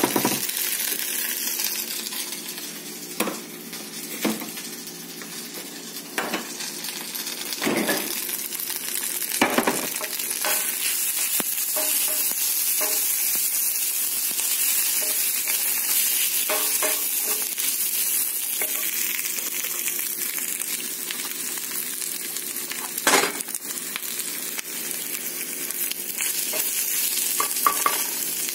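Sliced red onions frying with a steady high sizzle in a cast-iron skillet, stirred with a wooden spatula that now and then strikes the pan with a short knock, the sharpest about two-thirds of the way through.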